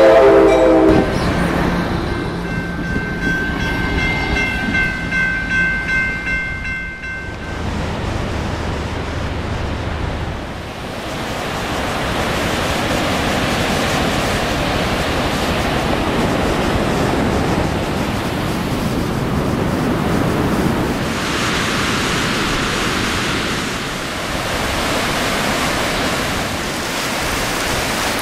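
Amtrak passenger train passing a level crossing: its horn ends about a second in, and the train runs by with a thin high steady tone and a low rumble until about ten seconds in. After that, ocean surf breaks steadily on the beach and washes around the pier pilings.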